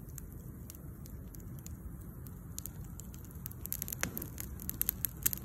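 Wood campfire crackling: a few sparse pops at first, growing more frequent over the last couple of seconds, over a low steady rumble.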